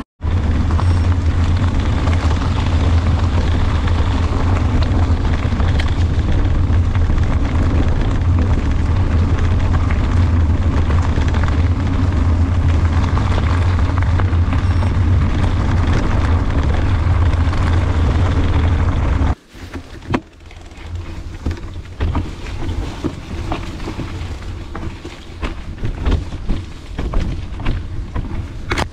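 Wind buffeting a handlebar-mounted camera's microphone on a mountain bike moving at speed: a loud, steady low rumble. After a cut about 19 seconds in it turns quieter and uneven, with many short clicks and rattles from the bike over the ground.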